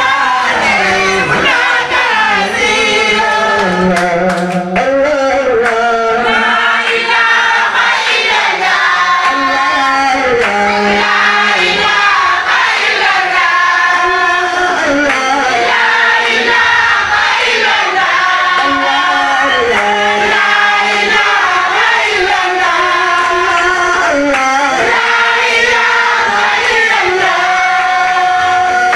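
A group of men's voices chanting a devotional song together in a sustained, melodic line, with a lead singer amplified through a headset microphone.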